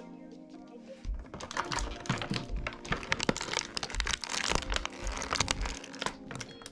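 Quick clicking and crinkling of plastic being handled, with toy packaging and figure parts worked by hand, starting about a second in. Background music with a steady bass beat plays underneath.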